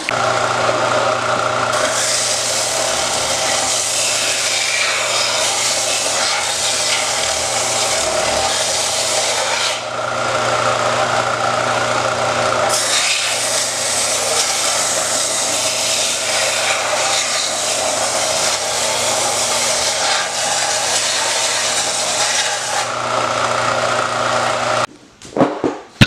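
Power grinder running with the steel sword blade held against it: a steady motor hum under a loud hissing grind that eases off for a moment or two about two, ten and twenty-three seconds in, then everything stops suddenly near the end.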